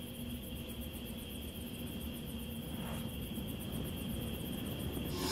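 Night insect chorus of crickets chirping in a fast, even pulse, with a steady high tone over a low rumble.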